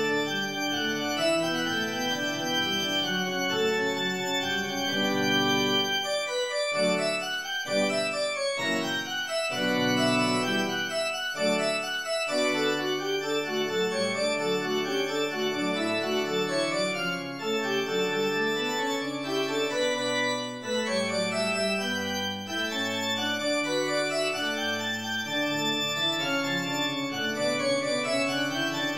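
Organ music: held chords with a moving melody over them, broken in the first half by a passage of short, detached chords.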